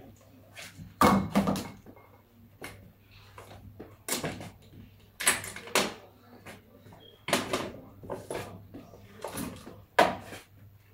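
Irregular knocks and clatters of hard objects being handled and bumped, about a dozen in all, the loudest a double knock about a second in.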